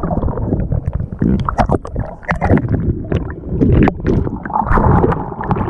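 Surf heard underwater in shallow water: a muffled, churning rumble with bubbling and many scattered clicks and knocks.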